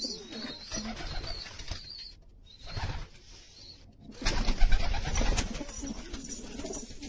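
Domestic pigeons cooing in a loft, low repeated coos. About four seconds in, a loud rustling burst lasting about a second stands out over the cooing.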